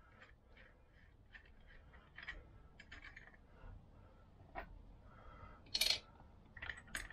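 Faint small metal clicks and clinks of pliers, nut and washers being handled on the end of a Vespa PX crankshaft in its aluminium engine case. A louder sharp metallic clack comes about six seconds in, then a quick run of clicks near the end.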